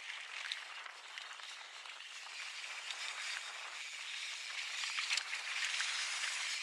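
Mountain bike tyres rolling fast over a dry dirt trail strewn with pine needles: a steady gritty hiss with small crackles of grit and twigs, louder near the end.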